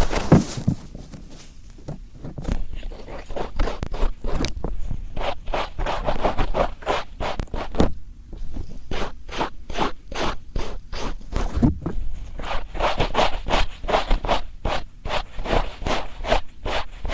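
Cotton swab scrubbing firmly in an ear: quick, repeated scratchy strokes, a few each second, softer for a few seconds after a loud crackle at the start, then steady and firm.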